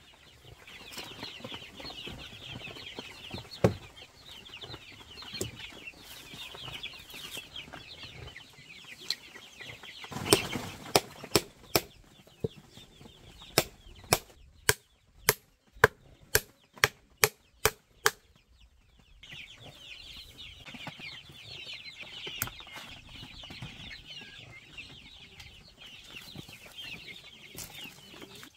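Chickens and young chicks peeping and clucking throughout, with a hammer striking wood: a few single blows early on, then a steady run of about a dozen strikes, roughly two a second, in the middle, as nails are driven into a wooden slatted ramp.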